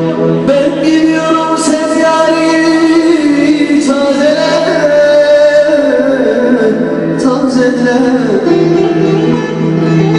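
A man singing a Turkish uzun hava in long, held notes that slide between pitches, to a bağlama with a steady low drone underneath.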